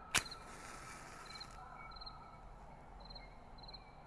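Crickets chirping in short repeated trills. Just after the start comes a single sharp strike, then about a second of hiss: a flame being lit for candles.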